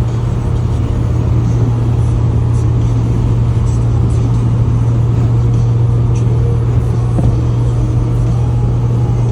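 Toyota LandCruiser 80 Series driving along, its engine and tyres making a steady, unchanging low drone.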